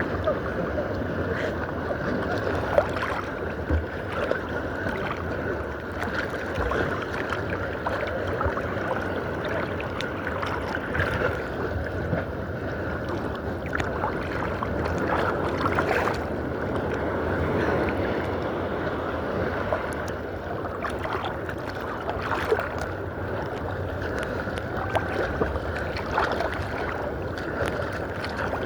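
Sea water splashing and sloshing steadily close by, with sharper splashes now and then, as from a swimmer's strokes.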